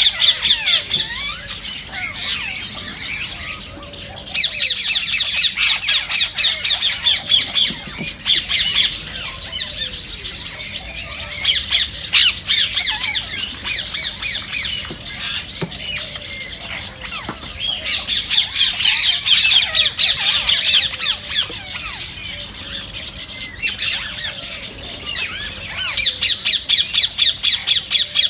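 Rose-ringed parakeets (Indian ringnecks) calling in an aviary: bouts of shrill, rapid screeches, several a second, each bout lasting a few seconds, with quieter chattering bird calls between the bouts.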